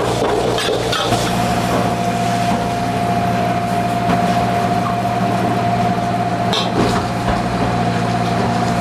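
Loud, steady machine hum with a constant whine that sets in about a second in, and a couple of brief clatters near the end.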